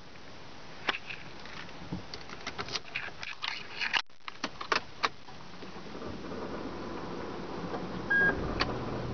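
Clicks and rattles of keys and controls in a Toyota Prius cabin, then a hum that slowly builds and a single short beep just after eight seconds as the car powers up and its dash display lights; a low steady hum starts right at the end.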